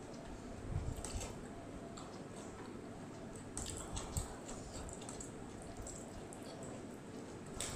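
Close-miked eating by hand: soft wet chewing and mouth sounds, with scattered faint clicks and soft thumps as fingers work food on a plate.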